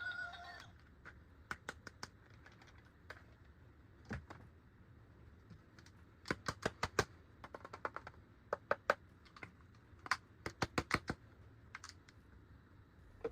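Sharp plastic clicks and taps in quick clusters, from toy parts being handled. A short electronic tune cuts off just after the start.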